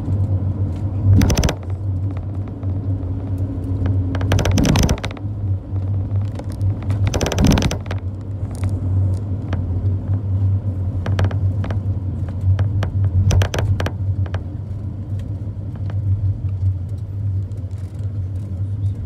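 Ride inside a moving tour vehicle: a steady low engine and road drone, with three short loud rattling bursts about 1, 4 and 7 seconds in and scattered small clicks and knocks.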